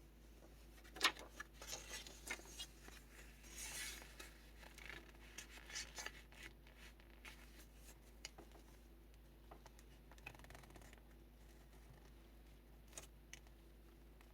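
Paper pages of a handmade kraft-envelope junk journal being handled and turned: a sharp tap about a second in, then rustling and a sliding swish of paper, fading to a few faint ticks in the second half.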